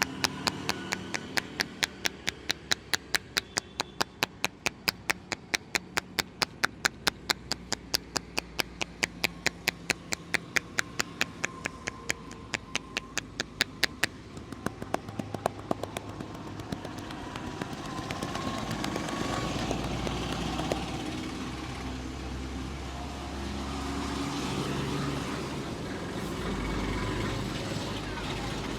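Rapid, evenly paced hand slaps of a percussive tapping massage, about four a second, which thin out and stop about fifteen seconds in. After that a steady low rumble of street traffic carries on.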